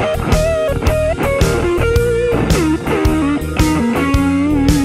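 Telecaster-style electric guitar playing a lead line with string bends, ending on a long held note with vibrato, over a steady drum beat.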